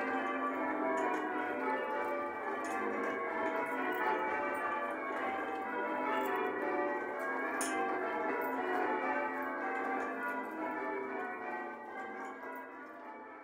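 Church bells rung in changes, English change ringing, with the bells of the ring striking one after another in overlapping succession. The sound fades away near the end.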